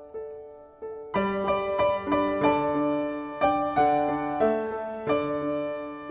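Background piano music: a soft melody that swells about a second in into louder, fuller chords.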